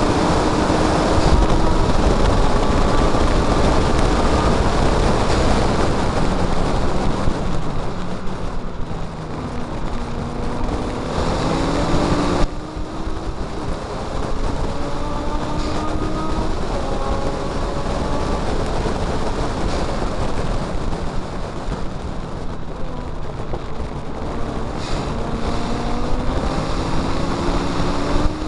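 Mazda MX5's four-cylinder engine running hard at race speed, its note climbing through the revs, cutting off sharply about twelve seconds in and climbing again, over a steady rush of wind and road noise.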